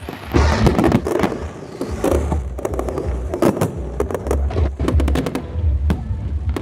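Fireworks going off: a rapid run of sharp bangs and crackles over a low rumble.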